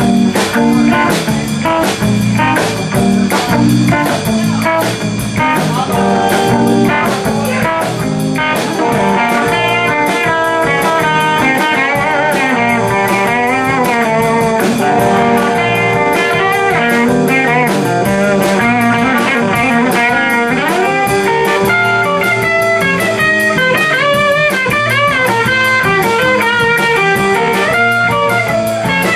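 Live blues-rock band playing an instrumental passage: electric guitars, electric bass and drum kit, with a lead guitar line of bent, wavering notes over a steady bass and drums.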